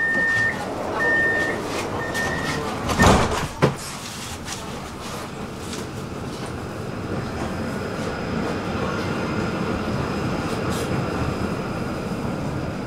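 Tram door-closing warning: three steady beeps, then the sliding doors shut with a loud knock about three seconds in. The tram then runs on with a steady rumble, and a faint high whine comes in about halfway through.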